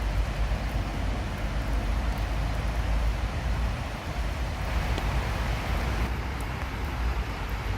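Steady rain falling, an even hiss with a few sharp drop ticks, over a heavy low rumble.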